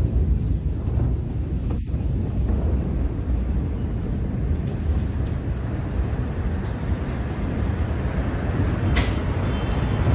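Steady low rumble in the aftermath of a massive explosion, with a couple of faint clicks near the end.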